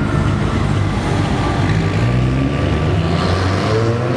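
Car engine running at low revs as a car rolls slowly by, with a brief rise in pitch near the end.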